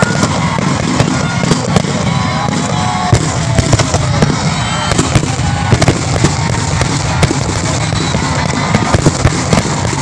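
Fireworks going off: a rapid, irregular run of sharp crackles and pops over a steady rumbling background.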